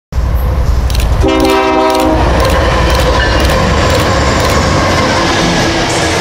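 Diesel freight train passing: the locomotive's air horn sounds one chord for about a second, over a loud low rumble with sharp clicks of the wheels about twice a second.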